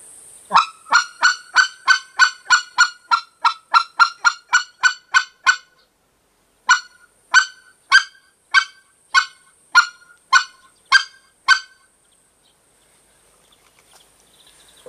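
Short-reed goose call blown to imitate a white-fronted goose's clucking: sharp single clucks, first a fast run of about three a second, then after a brief pause a slower series of about nine. The hand over the call's end opens and closes to step the pitch up and down, making a rising-and-falling "hill" of clucks.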